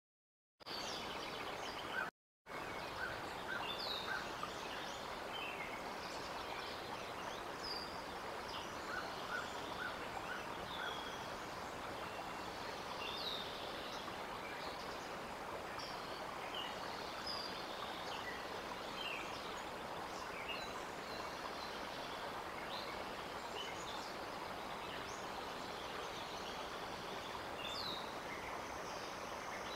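Steady outdoor background hiss with many small songbirds chirping and whistling, short high notes scattered throughout and a few quick runs of repeated notes. The sound cuts out completely twice in the first few seconds.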